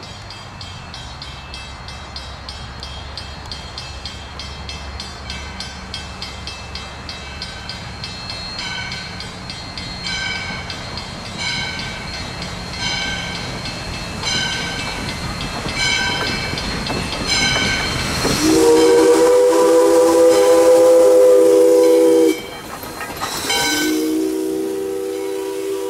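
Valley Railroad #40, a 1920 ALCO steam locomotive, approaching, its rumble growing louder, with its bell ringing about once every second and a half. It then sounds its chime whistle for the road crossing: one long blast of about four seconds that cuts off suddenly, a brief toot, and another long blast starting near the end.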